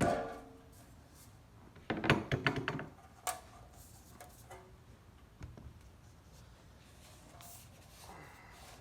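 Hard parts being handled during assembly: a sharp clank that rings briefly at the start, a quick rattle of knocks about two seconds in, a single click a second later, then a few faint knocks.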